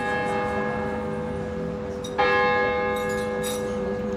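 Church bell tolling, struck once about halfway through, its tones ringing on between strikes.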